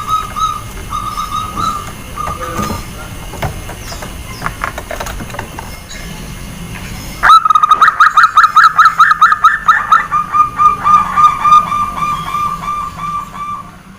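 Zebra dove (perkutut) cooing. A few short held notes come first, then about seven seconds in there is a louder, rapid run of short notes, roughly four or five a second, that lasts about six seconds.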